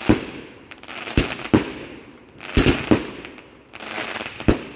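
A 30-shot consumer firework cake (Dream Weaver) firing: loud, sharp bangs about once a second, some in quick pairs, each followed by a fading crackling hiss as the shells burst.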